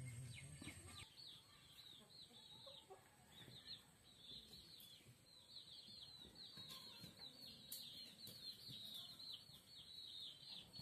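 Faint, rapid chirping from birds: a nearly continuous string of short, high, falling chirps.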